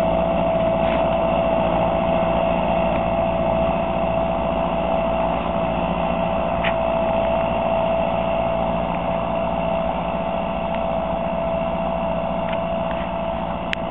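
Fendt 311 Vario tractor's diesel engine running steadily under the load of ploughing, with a steady whine over its running note. It grows gradually fainter as the tractor pulls away.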